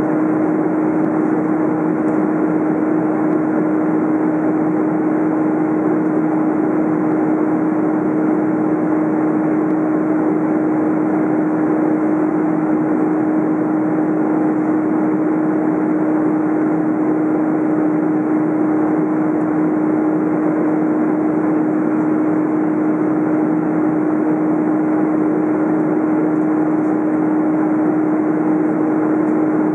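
Steady cabin noise inside an Airbus A330 airliner in flight: the constant rush of engines and airflow, with a steady hum running through it.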